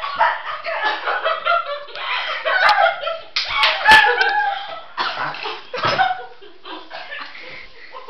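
Girls coughing and sputtering on mouthfuls of dry cinnamon, amid excited voices and laughter. A few sharp smacks come in the middle, the loudest about four seconds in.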